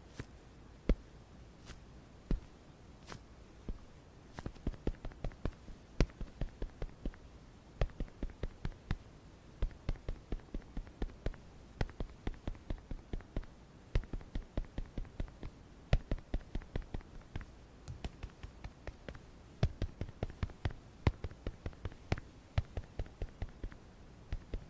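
Makeup tools tapping and patting close to the microphone: short soft taps, about one a second at first, then a quicker run of several a second from about four seconds in.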